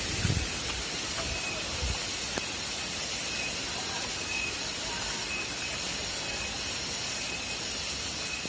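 Steady rushing of a waterfall, an even hiss with no breaks, with a few brief low thumps in the first two seconds.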